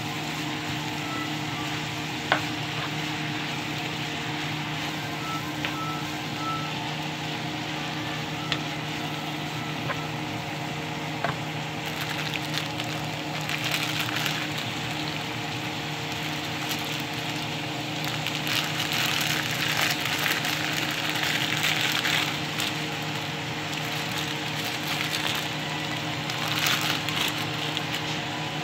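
Shredded cabbage and carrots sizzling in a frying pan under a steady hum, with a few sharp taps of the spatula against the pan in the first half. Later come rustling bursts as yakisoba noodle blocks are handled in their plastic pack and set into the pan.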